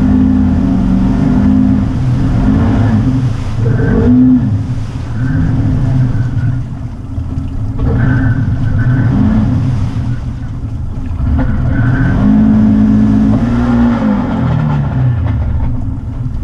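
Off-road vehicle's engine running under load, revving up and dropping back again and again, held high for a couple of seconds near the start and again about twelve seconds in.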